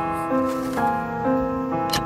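Background piano music, with notes changing about twice a second, and one short click near the end.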